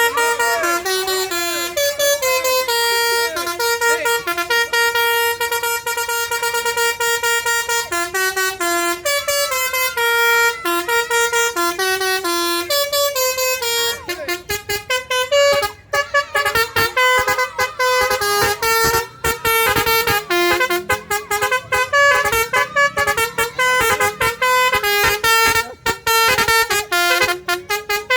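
A bus's musical telolet (basuri) horn playing a tune, held notes stepping from pitch to pitch. About halfway through the notes turn shorter and quicker, with brief breaks between them.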